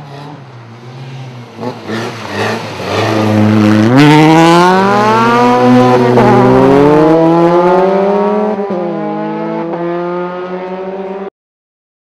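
Rally car engine revving hard as the car goes by close, loudest about four seconds in; the engine's pitch swoops up, sags slowly and climbs again. The sound cuts off abruptly near the end.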